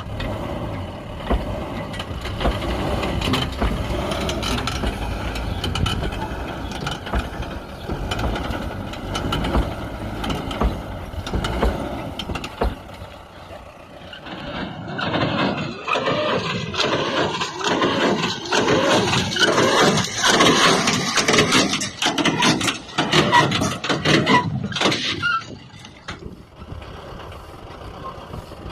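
Pickup truck engine running under load during a stunt, growing louder and harsher from about halfway through, then easing off shortly before the end.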